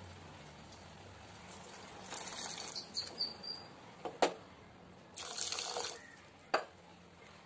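Thick coconut milk poured into a steel pan of cooked chana dal and stirred with a wooden spatula: two short spells of liquid sloshing, with several sharp knocks of the spatula against the pan.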